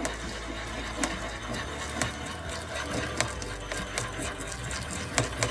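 Glass pestle scraping and clicking against a glass mortar in quick, steady strokes, working water into liquid paraffin and gum powder to form a primary emulsion.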